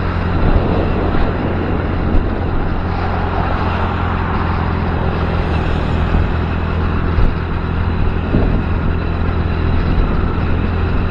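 Motorcycle engine running steadily at cruising speed, with a constant rush of wind and road noise over the microphone.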